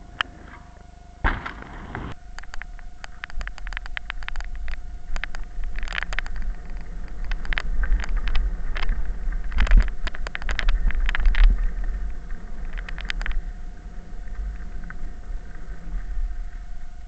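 Specialized Big Hit downhill mountain bike ridden down a bumpy dirt forest trail, heard from a camera on the bike: a low rumble of wind and tyres with rapid clicking and rattling of the bike over the bumps, loudest past the middle. A loud rush about a second in.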